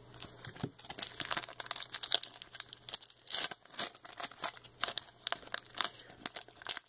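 Foil wrapper of a 1995 Fleer X-Men trading card pack being torn open and crinkled by hand: a rapid, uneven series of short, sharp crinkles.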